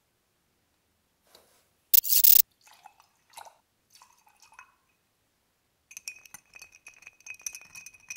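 Liquor and orange juice poured over ice in a cut-glass mixing glass, faint splashing, then from about six seconds in a bar spoon stirring the ice: a quick, steady run of clinks with the glass ringing. About two seconds in, a short, loud burst of noise is the loudest sound.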